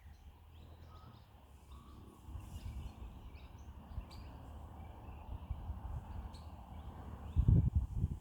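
Birds giving short, high chirping calls every second or so, over low wind rumble on the microphone; a louder burst of low rumbling noise comes near the end.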